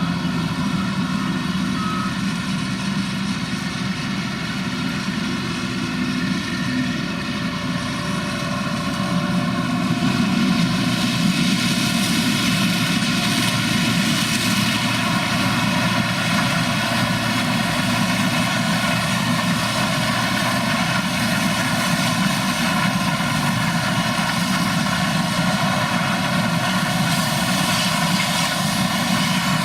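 Engine of heavy harvest machinery running steadily under load, a continuous drone with a hiss over it that grows louder about ten seconds in as the machine comes closer or works harder.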